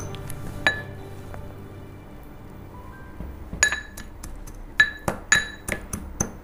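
A ceramic spoon clinking against a glass bowl as nacho chips are crushed in it: one sharp ringing clink about a second in, then a string of clinks in the second half.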